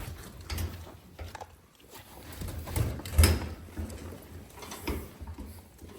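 Sheep shuffling and knocking about in a handling pen: irregular knocks and scuffs, the loudest a thump about three seconds in.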